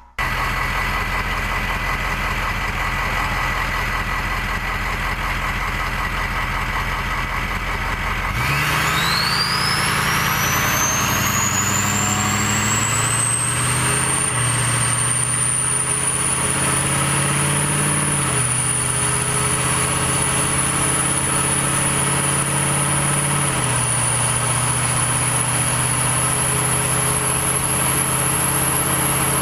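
Straight-piped 2003 6.0L Power Stroke V8 turbodiesel running. About eight seconds in the engine speed comes up and the turbo's whistle climbs steeply in pitch to a shrill, steady high whistle that holds while the engine speed shifts up and down a few times. This intense whistle is typical of the 2003 turbo, whose turbine wheel has fewer fins than in later years.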